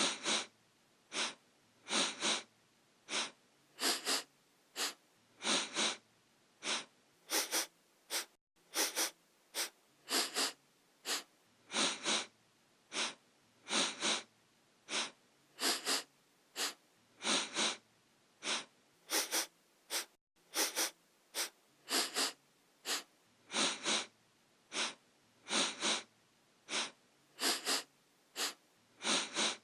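A person sniffing through the nose: short, sharp sniffs, often in quick pairs, repeating steadily about once a second.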